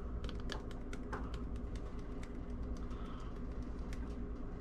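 Irregular light clicks and taps, several a second, from a small glass spice jar being shaken and knocked against a plastic measuring spoon to tip out chili powder, over a steady low hum.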